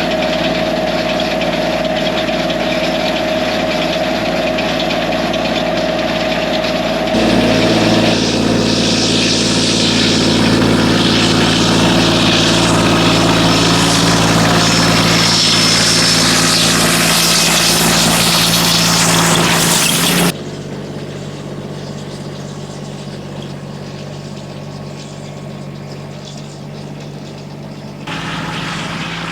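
Diesel tractor engine running steadily under load. The sound changes abruptly in level and pitch three times: louder about seven seconds in, much quieter about twenty seconds in, and a little louder again near the end.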